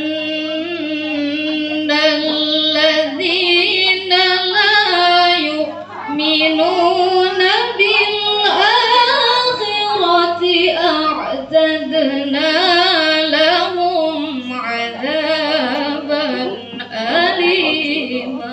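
A woman's voice singing unaccompanied in long melodic phrases, the notes held and ornamented with wavering turns, with short breaks for breath. A steady low hum runs beneath.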